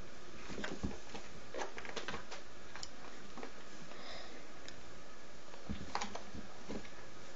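Two kittens scuffling on a hardwood floor: scattered light taps and clicks from paws and claws, over a steady background hiss.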